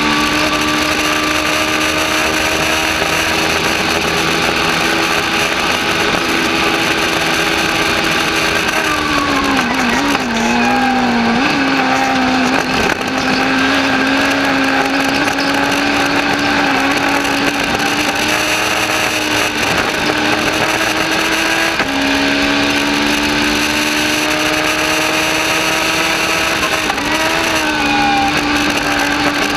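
Legends race car's Yamaha motorcycle four-cylinder engine running hard at high revs, heard from inside the cabin over wind and road noise. The engine pitch drops and wavers about ten seconds in and again near the end as the driver lifts for corners, and jumps back up about two-thirds of the way through.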